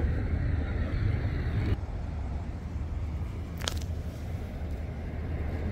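Steady low rumble of idling vehicle engines, with one short high chirp about three and a half seconds in.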